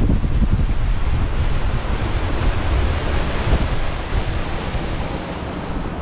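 Wind buffeting the microphone and water rushing past the hull as a motorboat runs at speed, its wake churning, easing a little in loudness in the second half.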